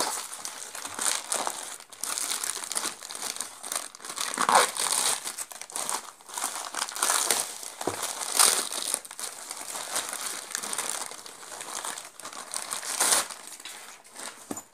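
Thin plastic courier mailer crinkling and rustling in irregular bursts as hands pull and fold it off a packed bag. The sound stops abruptly just before the end.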